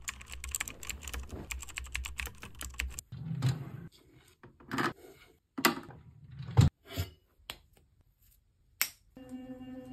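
A run of close-up handling sounds: bedding rustling with dense clicks, then separate knocks and scrapes as a bedside drawer is opened and small cosmetics are picked up and set down. Near the end, a sonic electric toothbrush switches on with a steady buzz.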